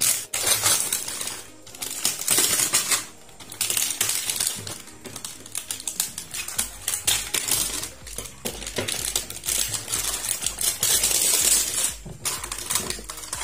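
Clear plastic shrink-wrap film being torn and peeled off a plastic toolbox: a dense run of crackling and crinkling, broken by a few short pauses.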